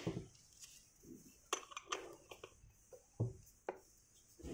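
Small metal screws and washers clinking and clicking as they are handled and threaded in by hand: a handful of sharp, separate clicks.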